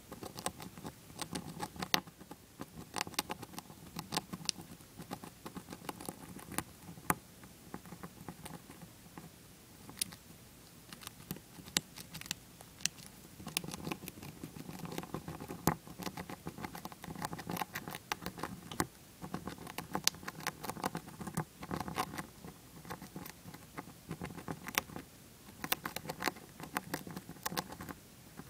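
Dwarf hamster gnawing a shelled peanut: many small, sharp crunching clicks at an irregular pace, sometimes in quick runs.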